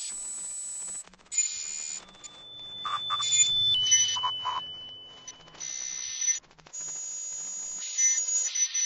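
Electronic sound effects: hissing swells and a thin, high, steady tone that steps down to a slightly lower pitch partway through.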